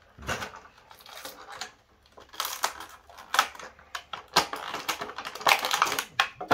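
Toy packaging being handled and opened: plastic and cardboard crinkling with irregular clicks and snaps, the loudest snap at the very end.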